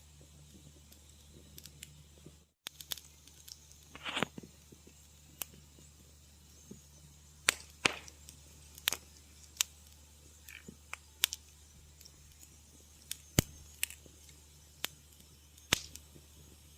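Wood fire crackling in a fireplace: irregular sharp pops and snaps over a steady faint low hum. The sound cuts out completely for an instant about two and a half seconds in.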